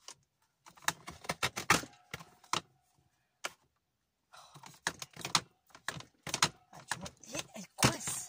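Plastic border punch on a punch-around-the-page track being worked along a sheet of thick cardstock: irregular clicks and clacks as the punch is pressed through the card and shifted into place for the next cut, with a short lull a little before the middle.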